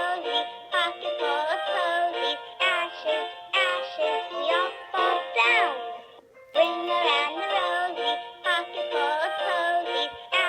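Electronic children's toy playing a synthesized melody through its small speaker, with a brief pause about six seconds in.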